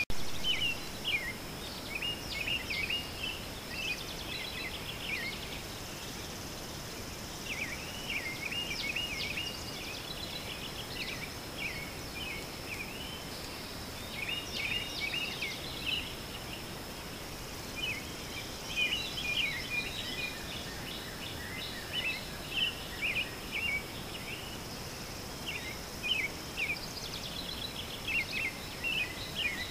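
Outdoor nature ambience: birds chirping in short clusters every second or two over a steady, high-pitched insect drone.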